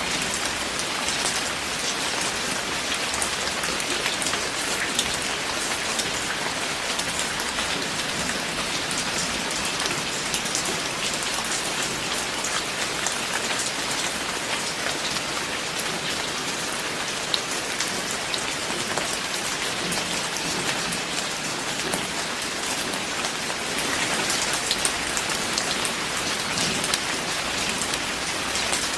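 Steady rain falling, a dense hiss with many individual drops ticking sharply through it, growing a little heavier near the end.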